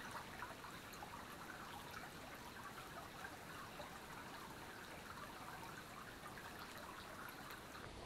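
A small creek trickling over stones: a faint, steady sound of running water.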